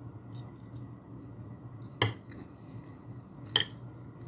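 Metal spoon and fork clinking against a ceramic dinner plate during eating: two sharp clinks, about two seconds in and again a second and a half later, with a few lighter taps before them.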